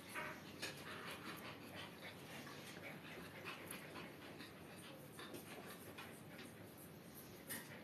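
A dog panting softly in quick, short breaths.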